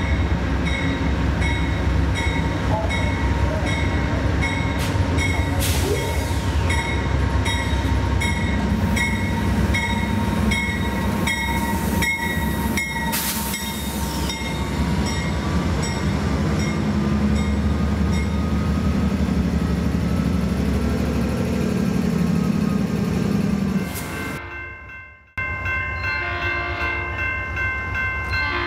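Amtrak GE P42DC diesel locomotive pulling into the station and passing close by, its engine rumbling louder as it nears, with a few metallic clanks and a light ringing tick repeating about twice a second. Near the end, after a brief break, a train horn sounds.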